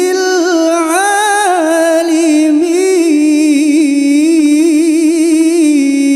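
A man's voice chanting Quranic recitation into a microphone, one long drawn-out melodic phrase that wavers up and down in ornaments and steps down a little near the end.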